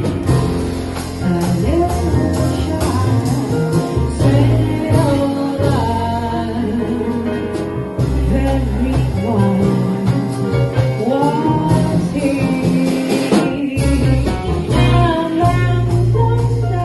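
Live jazz performance: a woman singing over piano and double bass.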